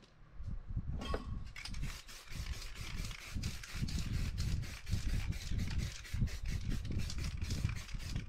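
Aerosol spray paint can spraying in many short, quick bursts of hiss, starting about a second in, over a low rumble.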